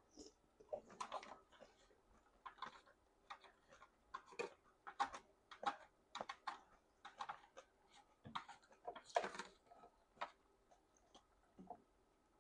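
Close-up mouth sounds of a person eating jajangmyeon noodles: a run of short, irregular wet clicks and smacks from chewing, the loudest a little after two-thirds of the way through.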